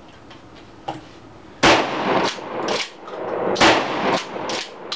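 Shotgun firing buckshot: two loud blasts about two seconds apart, the first about a second and a half in, each followed by shorter, sharper knocks.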